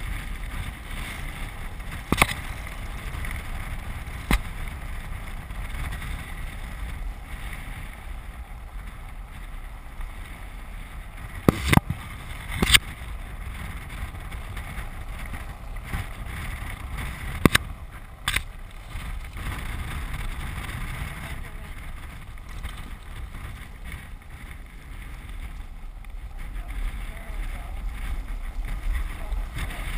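Land yacht rolling across a dry lake bed: a steady low rumble of the wheels on the hard ground, mixed with wind on the camera microphone. A handful of sharp knocks from the frame and rigging, the loudest about twelve and eighteen seconds in.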